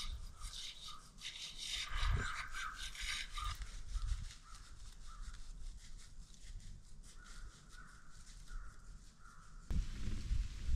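Close rustling and rubbing of the hunter's clothing against the phone for the first few seconds. Later a bird calls a run of short, evenly spaced notes, about two a second. Near the end the sound changes abruptly to a low wind rumble on the microphone.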